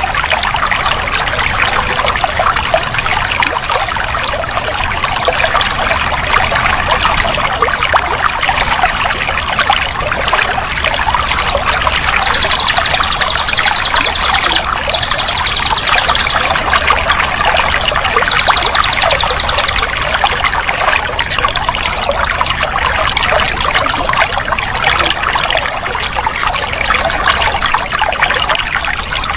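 Water flowing steadily, trickling and splashing without a break. Three short bursts of high, rapid trilling come in about halfway through.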